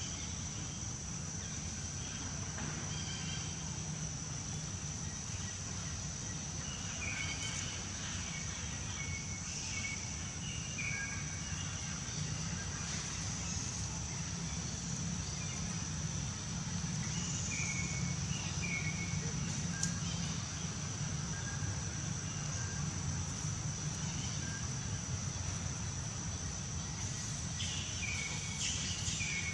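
Outdoor ambience: a steady high insect drone runs throughout, with short high chirps now and then, over a low hum.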